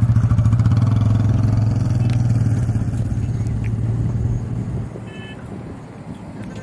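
A motor engine running with a steady low hum, loud at first, then fading away about four and a half seconds in.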